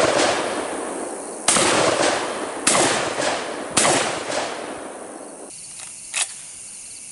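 Fed Arm FX3 semi-automatic 12-gauge shotgun firing three rapid shots a little over a second apart, each bang trailing off over about a second. The echo of a shot fired just before is dying away at the start, and a single short click follows about six seconds in.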